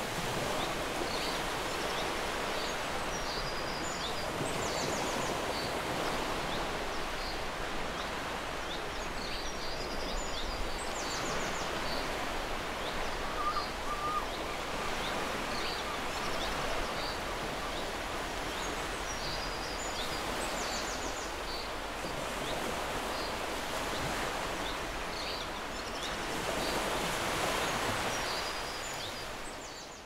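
Steady noise of surf and wind on a beach, with faint, short, high-pitched bird calls and chattering trills every few seconds.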